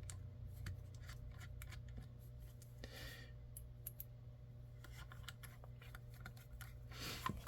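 Faint scattered clicks and a brief scrape about three seconds in, from small screws and a hand driver being worked into the chassis parts of an RC crawler kit, over a steady low hum.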